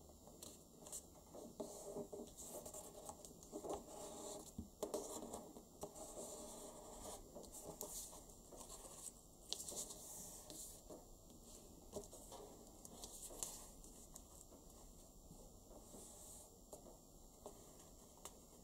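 Origami paper rustling and crinkling as fingers fold it and press the creases against a wooden tabletop: faint, irregular scratchy strokes, busier in the first half.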